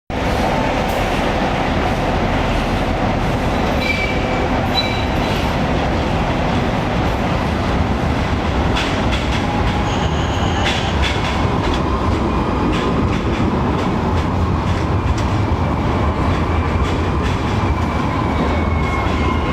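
Street tram running on its rails, a steady loud rumble of wheels and drive. Brief high tones come a few seconds in, and a few clicks near the middle.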